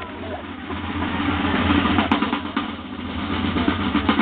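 Side drums of a drum corps playing a continuous drum roll, with a few sharper accented strokes.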